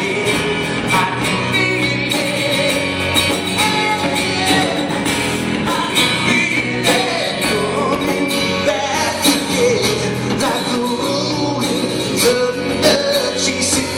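Rock band playing a song live, guitars and drums with a voice singing over them.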